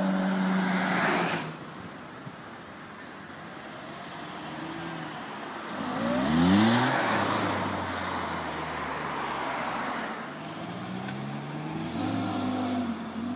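Cars driving away one after another: an engine runs close by at first and fades, then a Ferrari V8 accelerates hard with a rising rev about six seconds in, the loudest moment, followed by steady engine and tyre noise as more cars roll past and another engine picks up near the end.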